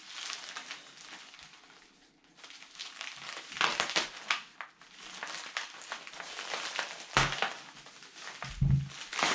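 Packaging crinkling and crackling in irregular bursts as it is pulled and wrestled at by hand, a hard-to-open package, with a couple of low bumps near the end.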